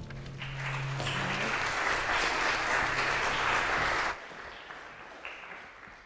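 Congregation applauding, with a low held note still sounding under it at first; the clapping drops off sharply about four seconds in and fades away.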